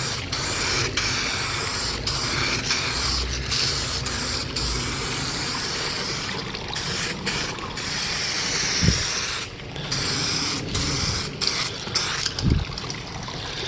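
SprayMax 2K clear-coat aerosol can spraying a coat of clear in long hissing passes, broken several times by short pauses where the nozzle is let go.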